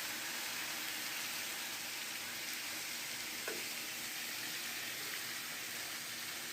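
Marinated chicken pieces frying in oil in a hot pot, a steady sizzle, with one faint brief tap about three and a half seconds in.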